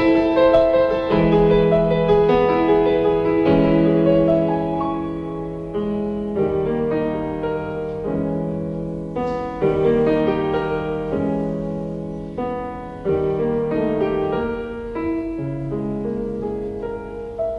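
Slow solo piano music: chords struck one after another and left to ring and fade.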